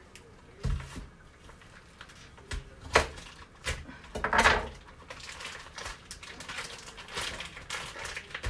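Plastic packaging of a pack of bacon being handled and opened: a few clicks and knocks against the counter, the sharpest about three seconds in, then crinkling and rustling of the wrapping through the second half.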